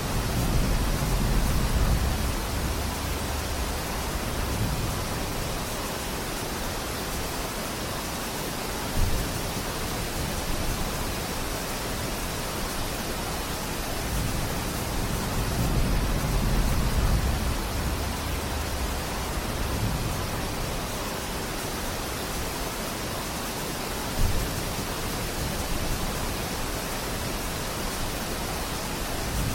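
Steady rain falling in a forest, an even hiss with no rhythm. A low rumble swells and fades a few times, and two brief louder knocks stand out, about a third of the way in and again near the end.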